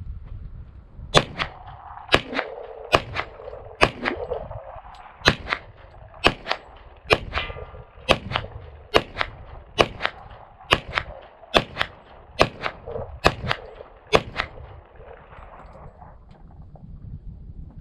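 Glock 22 Gen4 pistol (.40 S&W) firing about fifteen single shots at a steady pace of roughly one a second. Echo carries on between the shots and fades about two seconds after the last one.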